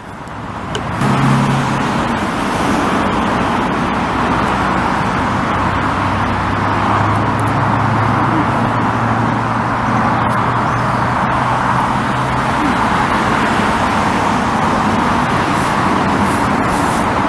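Steady noise of traffic on a busy main road, a continuous stream of tyre noise. A deeper engine hum from a heavier vehicle joins it from about six seconds in to about twelve.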